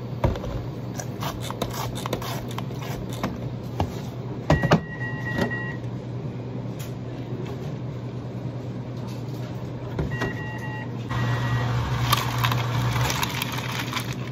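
Coffee-shop bar work behind the counter: a steady low equipment hum under light clicks and knocks of plastic cups and bottles, with the loudest knocks about four and a half seconds in. Short electronic beeps sound twice, around five and ten seconds in. Near the end comes a rush of rattling noise as ice is tipped into a plastic cup.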